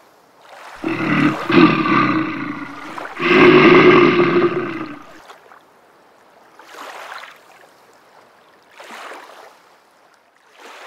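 A bear growling: two long, loud growls one after the other, then two much fainter, shorter breathy sounds later on.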